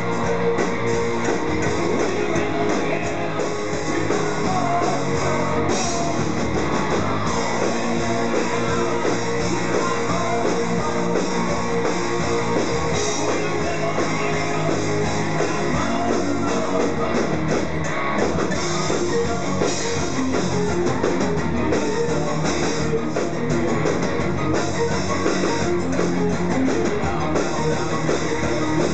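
Live rock band playing: electric guitar and drum kit, with a singer.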